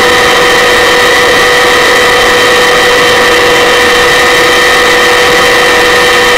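Helicopter engine and rotor noise heard from on board: a loud, unchanging drone with several steady whining tones over a rushing hiss.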